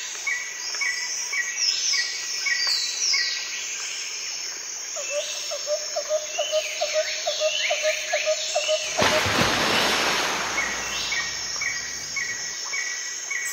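Many birds chirping and calling, one of them repeating a low short note about four times a second for a few seconds, over a steady high insect hum. A loud rushing noise, about a second and a half long, breaks in a little after halfway through.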